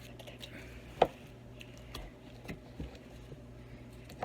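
Light handling noises of plastic slime containers: a sharp click about a second in, then a few fainter taps, over a faint steady low hum.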